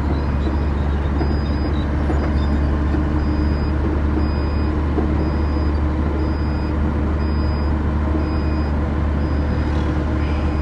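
Shacman heavy truck's 420-horsepower diesel engine running steadily under load while cruising at about 60 km/h, a constant deep drone with road noise. A faint high-pitched tone pulses on and off at an even pace over it.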